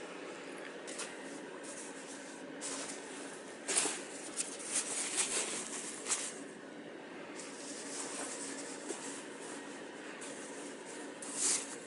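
Soft rustling and shuffling of the mukluks' fabric shells as the wearer shifts and steps on carpet, with louder swishes about four seconds in, again a second or two later, and near the end.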